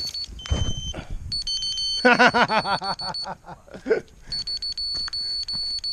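An electronic beeper sounds runs of fast, high, steady beeps with pauses between them. A lower beep comes twice in the first two seconds, and a loud wavering, voice-like sound rises over the beeping for about a second from two seconds in.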